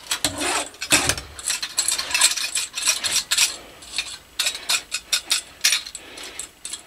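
A metal nut spun by hand along a threaded rod, a quick run of metallic clicks and rasping, with small parts handled on a workbench.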